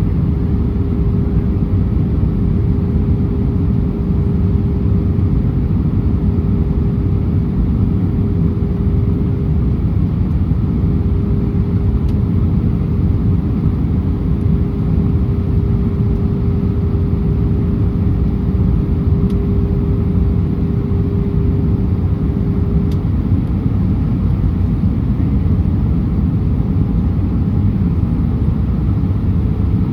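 Steady, loud cabin roar of an Airbus A319 airliner in flight, with a steady hum-like tone over it. The tone stops about two-thirds of the way through, and a new tone rises near the end.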